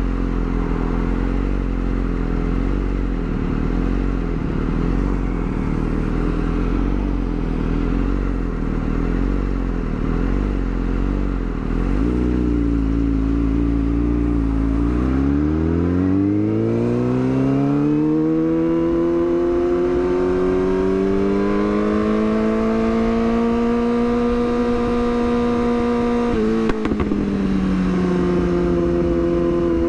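Yamaha R6's inline-four engine running at low revs, then, about halfway through, revving up in a smooth rising pitch and holding a steady higher note. Near the end a short click as the revs drop back, an upshift.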